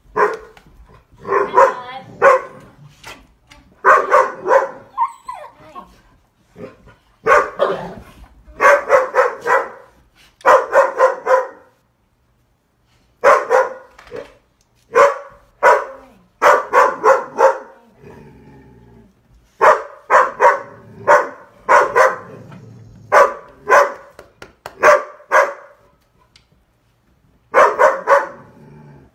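Dog barking loudly over and over in quick runs of two to four barks, with short pauses between the runs.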